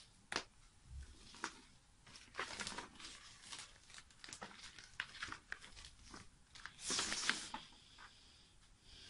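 Faint rustling and small handling clicks, like something being moved or shuffled by hand close to the microphone, loudest in a short rustle about seven seconds in.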